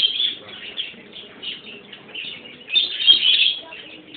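White hamster squeaking in distress while held in a constricting snake's coils: a run of high, chirp-like squeaks, loudest right at the start and again about three seconds in.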